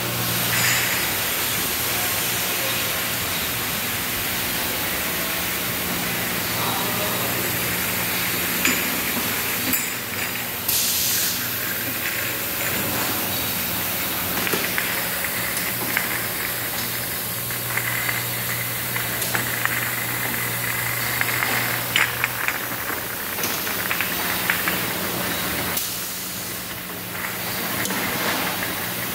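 Bottling-line machinery running: a constant hiss over a steady low mechanical hum, with scattered clicks and clacks.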